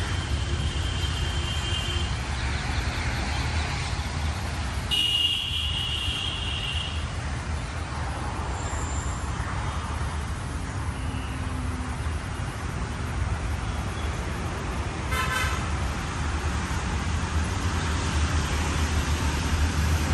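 Traffic noise from the city around the park: a steady low rumble of road traffic with car horns honking. There is a horn of about two seconds at the start, a louder one about five seconds in, and a short toot about three quarters of the way through.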